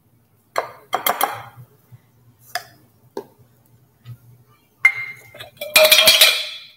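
Nested metal measuring cups clinking and clattering as they are handled on a kitchen counter: a few separate knocks, then a louder ringing clatter near the end.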